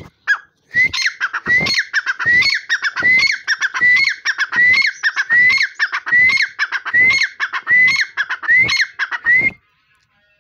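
Grey francolin (dakhni teetar) giving its loud territorial call. A ringing phrase of a rising note and then quick falling notes is repeated about eleven times, a little more than one phrase a second, and it stops near the end.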